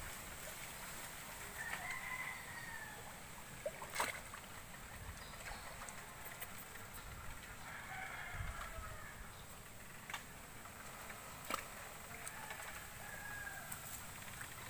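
A rooster crowing faintly, about three times, each crow lasting about a second. A few short sharp clicks stand out between the crows, over a steady outdoor hiss.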